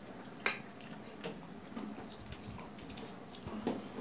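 Instant noodles being slurped and eaten, small wet mouth sounds with a few light ticks, the sharpest about half a second in.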